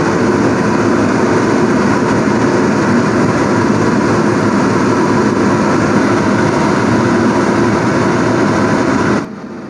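Water boiling hard in a wide pan with bok choy blanching in it, a steady loud bubbling rumble that stops abruptly near the end.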